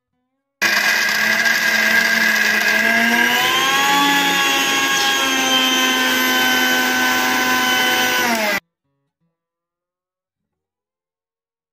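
Electric kitchen mixer grinder grinding a jar of soaked chunks, its motor whine loud and steady. The pitch sags as the blades take the load, climbs back, and the machine cuts off suddenly near the end.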